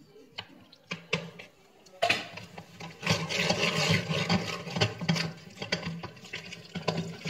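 Soft cooked potatoes and carrots being pressed and scraped with a wooden spoon through a plastic food mill: wet squelching and scraping, a few scattered clicks at first, then continuous from about two seconds in.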